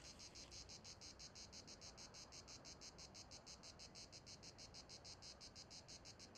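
Faint insects chirping in a fast, even pulse, several chirps a second, over a faint low rumble.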